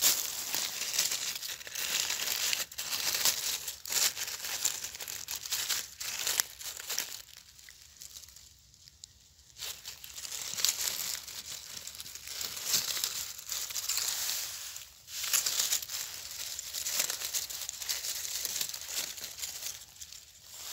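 Dry fallen leaves and twigs rustling and crackling as a hand moves through the leaf litter around a mushroom, with a short lull a little before the middle.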